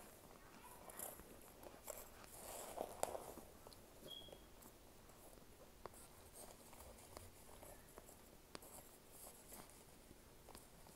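Faint, sporadic mouth sounds of chewing a microwaved chunk: soft crunches and small clicks, loudest in a short cluster about three seconds in.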